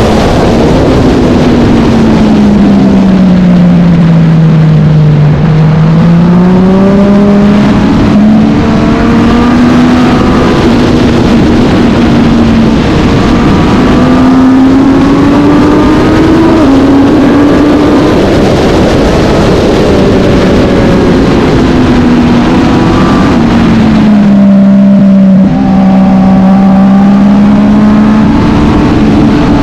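A racing motorcycle engine at race pace, its pitch falling and rising with the throttle through the turns, with a sudden step about two-thirds of the way through that sounds like a gear change. A constant rush of wind and road noise lies under it.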